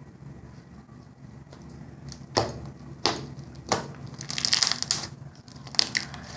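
Slime being squeezed and stretched by hand, giving sharp pops about two and a half, three and nearly four seconds in, a run of crackling just after, and one last pop near the end.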